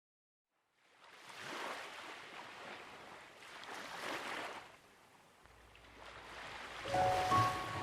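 Ocean surf sound effect: waves wash in twice, then a third swell builds near the end. Solo piano notes begin about seven seconds in.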